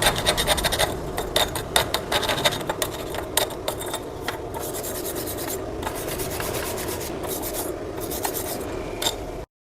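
Scraping and rasping over a freshly MIG-welded steel joint as its light dusty film is cleaned off the bead. Quick scratchy strokes come first, then settle into a steadier, softer rasp that cuts off abruptly near the end.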